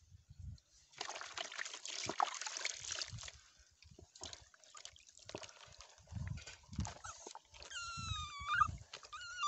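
Soapy bathwater splashing and pouring off a wet terrier puppy held up over a plastic basin, with sloshing in the basin after. Near the end the puppy whines, once and then briefly again.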